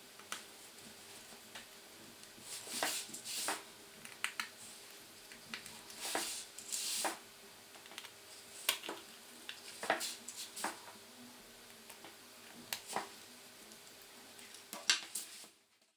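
Irregular small clicks and short scrapes of hand tools and small plastic and metal smartphone parts being handled during a repair, over a faint steady hum. The sound cuts off suddenly near the end.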